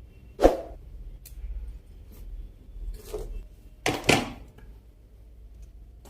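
A few sharp clicks and knocks of objects being handled: one about half a second in, a softer one about three seconds in, and a quick double knock about four seconds in.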